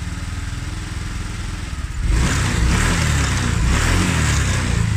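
Honda Vario scooter's single-cylinder fuel-injected engine idling, then revved up with the throttle from about two seconds in until near the end. It pulls cleanly on a new fuel pump delivering a normal 40 PSI, the old pump having been weak and causing the stuttering.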